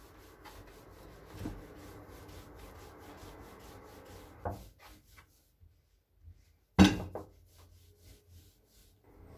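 Wooden rolling pin rolling and rubbing over a crustless slice of white bread on a hard countertop, flattening it thin. The rubbing is steady for the first four seconds or so, then comes in lighter, broken strokes, with one sharp knock just before seven seconds in.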